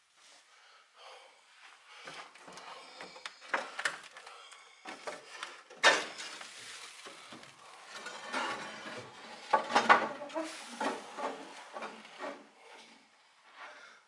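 Irregular knocks, clacks and scraping from someone moving about an empty room and handling things, with a sharp knock about six seconds in and a cluster of knocks near ten seconds.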